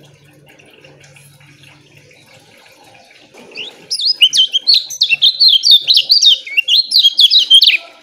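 Lemon-bellied white-eye (kecial kuning) singing: a loud, rapid-fire run of short chirping notes that starts about halfway through and stops just before the end.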